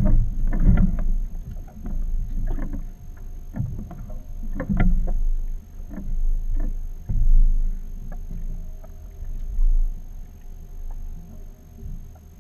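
Water slapping and sloshing against the hull of a small fibreglass fishing boat as it rocks on the swell, in irregular surges every second or two over a low steady rumble.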